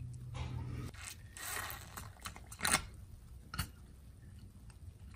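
Glass Pyrex watch glass being handled in a plastic tub of water: irregular sharp clicks, knocks and scrapes of glass against plastic, loudest a little past the middle. A low steady hum cuts off about a second in.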